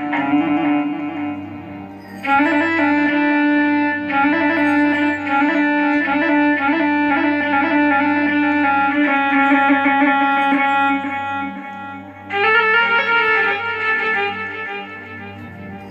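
Rababa (bowed Bedouin fiddle) voice from a Korg Triton keyboard sound set, playing a free-flowing ataba/mawwal-style melody over a steady low drone. The phrases swell and ease back twice, about two seconds in and again about twelve seconds in.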